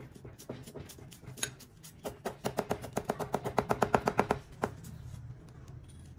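Steel cleaver chopping green onions on a thick wooden chopping block. The strokes run fast and even, about seven a second, each with a short ringing tone, and stop a little before the end.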